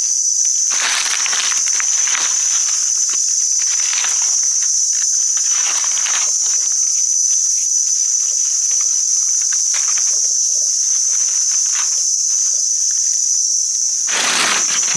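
Steady high-pitched drone of forest insects, with footsteps rustling through the undergrowth every so often, the loudest just before the end.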